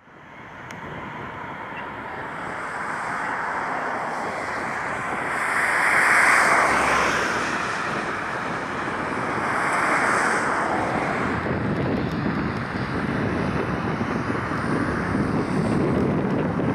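Boeing 737-700's CFM56 turbofan engines running at taxi power as the jet turns to line up on the runway, a steady distant jet rush mixed with wind buffeting the microphone. The sound fades in at the start and swells twice.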